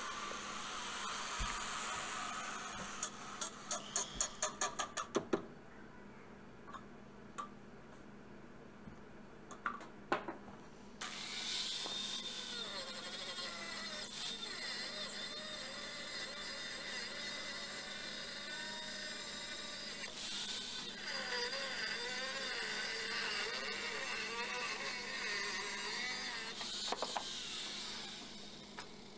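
4.5-inch angle grinder with a cutoff wheel cutting through a steel knife blank, running steadily with its pitch wavering under load through the second half. About three seconds in comes a quick run of about eight clicks, followed by a quieter stretch of several seconds before the cutting starts.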